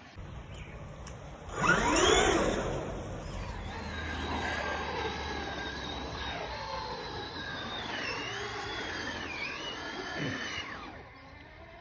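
Electric RC car motor whining as it is throttled hard, its pitch sweeping up and down. The loudest burst is a quick rising whine about two seconds in, and the whine cuts off near the end.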